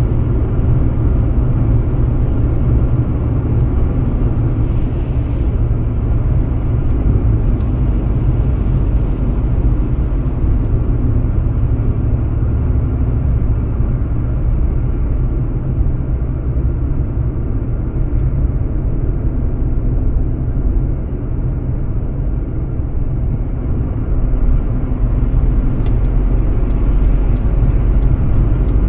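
Car driving at motorway speed: a steady, deep rumble of tyre and road noise with the engine underneath, and a few faint clicks.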